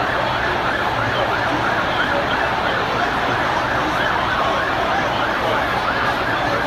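Fire engine siren sounding a fast rising-and-falling wail, about two cycles a second, over the steady din of a large crowd.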